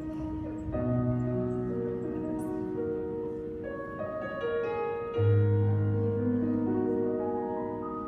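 Slow instrumental music of sustained, overlapping notes that change step by step. A deep bass note comes in about five seconds in.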